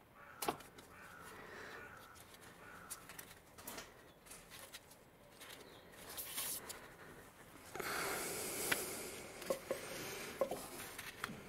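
Scattered clicks, scrapes and rubbing as the ribbed drive belt is worked off the pulleys of a BMW E87 engine by hand, with a sharp click about half a second in. The rustling and scraping grow louder in the last few seconds.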